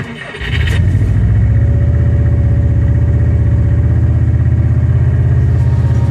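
LMTV truck's diesel engine running at a steady idle, coming in about half a second in.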